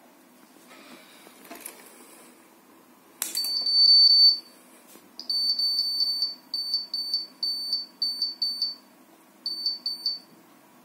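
HID iCLASS SE keypad card reader beeping as it reads a configuration card held to its face: runs of short, high, single-pitched beeps with brief gaps, stopping near the end, which the card's directions give as the sign that the configuration has been taken. Before the beeps there is a faint rustle of the card being handled and a click as it meets the reader.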